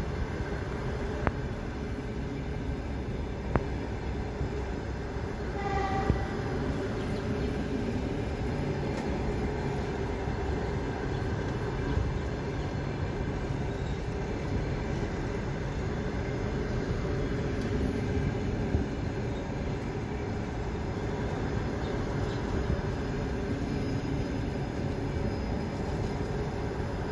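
Passenger train coaches rolling past close by: a steady rumble of wheels on rail with a few scattered sharp clacks, and a brief high tone about six seconds in.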